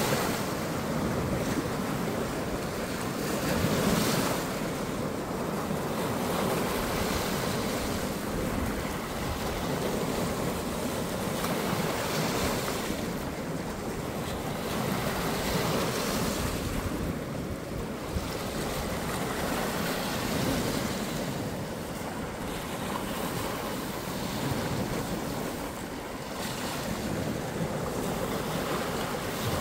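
Small waves washing onto the shore, a steady rush that swells and eases every few seconds, with wind buffeting the microphone.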